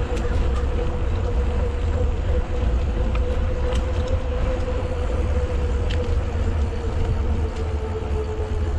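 Wind rumbling on the microphone of a camera riding along on a moving bicycle, with a steady mid-pitched hum throughout and a few faint clicks.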